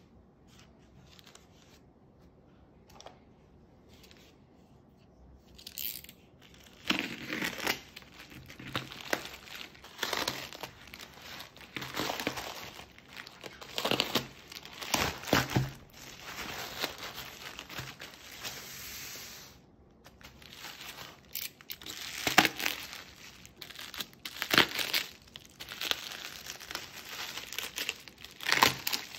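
A plastic mailer bag being torn open by hand and the bubble wrap inside crinkling as it is handled, in irregular rustles and rips that start about six seconds in, with one longer, steadier rip near the middle.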